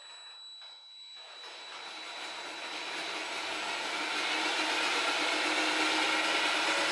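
Cordless DeWalt drill spinning a lawnmower blade mounted on a test shaft: a motor whine and the rushing air of the blade, growing steadily louder for the first few seconds as the blade comes up to speed, then holding steady. This is a vibration test run for dynamic balancing of the blade and hub.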